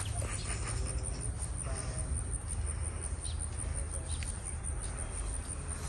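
Outdoor garden ambience: an insect trills with a fine, even, high-pitched pulse over a steady low rumble, with a few faint bird chirps.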